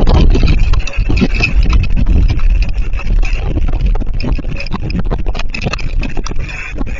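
Strong windstorm gusts buffeting the microphone: a loud, gusty low rumble with many sharp ticks and taps mixed in.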